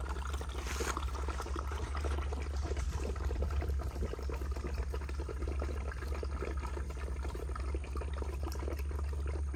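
A litter of American bully puppies eating together from a shared pan, a steady run of small wet slurps, smacks and chewing clicks. A steady low rumble sits underneath.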